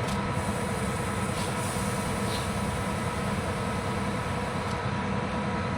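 Tractor engine running steadily, a constant low hum with a faint steady whine above it.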